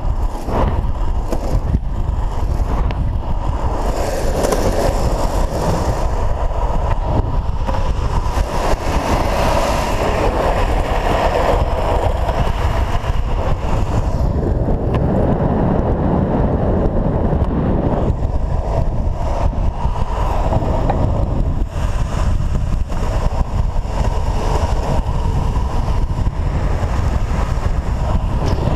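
Wind rushing over a pole-held action camera's microphone, mixed with the rolling noise of longboard urethane wheels on asphalt during a fast downhill run. It is steady throughout.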